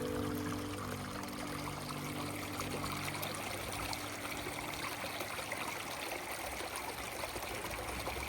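Running water flowing steadily in an even rush. The last held notes of background music fade away over the first few seconds.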